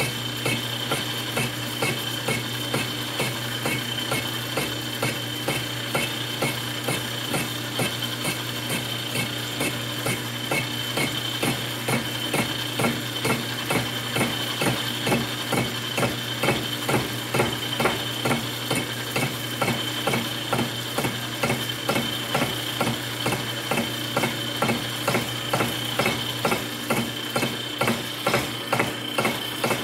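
Metal lathe running with its cutting tool taking an interrupted cut on an out-of-square workpiece: a steady motor hum with a regular tick about twice a second as the tool hits the high side, more distinct after the first ten seconds or so.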